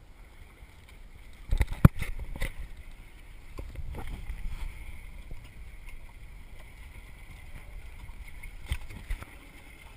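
Sea water washing against a small fishing boat's hull, with wind rumbling on the microphone. A few sharp knocks on the boat about one and a half to two and a half seconds in, and two more near the end.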